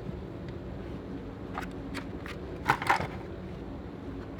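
Metal hand tools being handled and set down in a toolbox drawer and tool cart: a few short clinks and knocks, the loudest pair close together about three seconds in, over a steady low hum.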